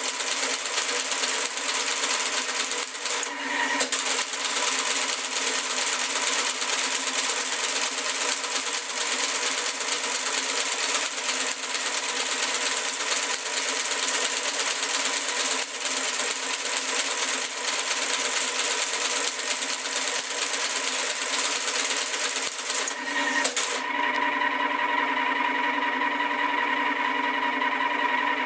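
1959 Friden Flexowriter SFD typing out a pre-punched tape as its reader runs it: a fast, continuous mechanical clatter over the hum of its motor, with a short break about three seconds in. The clatter stops about four seconds before the end, leaving the motor humming steadily.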